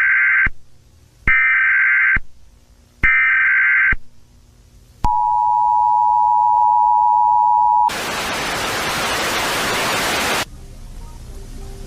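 Emergency Alert System alarm: three short data bursts of the header, then the two-tone attention signal held steady for about three seconds, then a hiss of static for about two and a half seconds. Faint music begins near the end.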